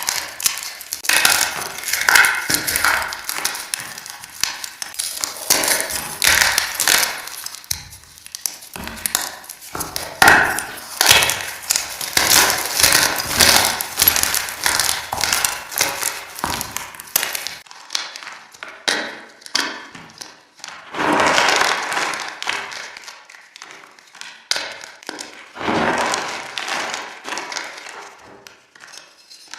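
Fresh gym chalk being crushed and crumbled, a dense crackling crunch with an echo effect added to it, which thins into fewer, separate crunches in the second half.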